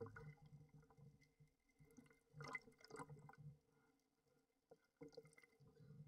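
Near silence with faint water sloshing and small splashes at the sea surface, a little cluster of them about two and a half seconds in and again near the end.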